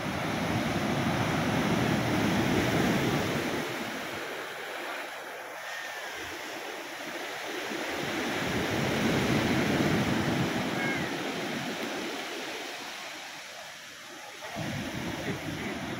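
Sea waves breaking and washing up a beach. The surf swells loudest twice, about three seconds in and again about ten seconds in.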